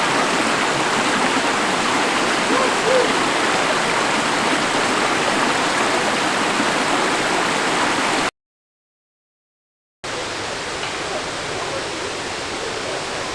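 Waterfall rushing, a steady full roar of falling water. About eight seconds in it cuts to dead silence for roughly two seconds, then the rush returns a little quieter.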